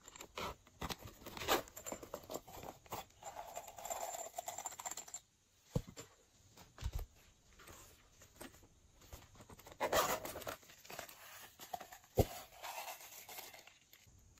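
Hands handling hard plastic toy containers: irregular rustling, scraping and clicking of plastic, with a couple of sharp knocks, one a little before the middle and one near the end.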